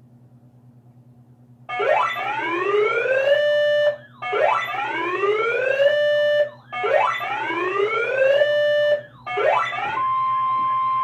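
Emergency alert attention signal: three whooping alarm sweeps, each rising in pitch for about two seconds and then holding, followed near the end by a steady single-pitch alert tone. A faint low electrical hum sits under the quiet first second or two.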